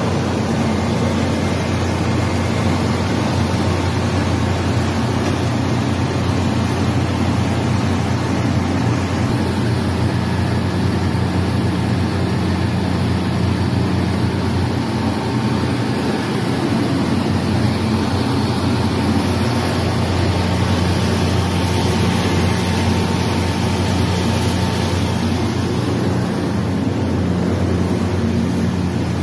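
Shin Nong rice mill machine running while milling palay (unhusked rice): a loud, steady mechanical drone with a low hum underneath.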